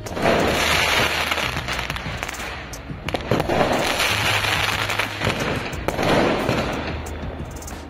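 Firecrackers going off: dense crackling with many sharp pops, swelling and fading every couple of seconds.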